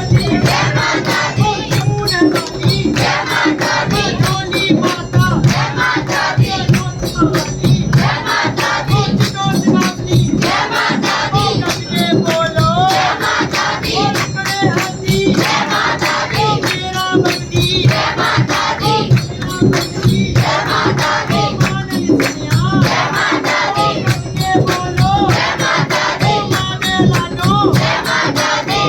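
Devotional group singing with a steady percussion beat and tambourine-like jingles.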